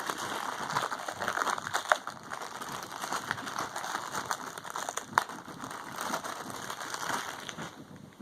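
Plastic packaging crinkling and rustling as a small blind-box figure is unwrapped and handled, a steady run of crackles and small clicks.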